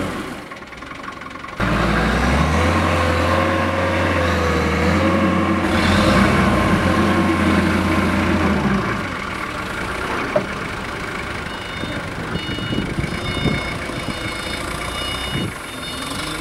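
Diesel engine of an XCMG FD30T 3-ton forklift running steadily as the truck works a load. It jumps louder about a second and a half in and drops back somewhat past the middle.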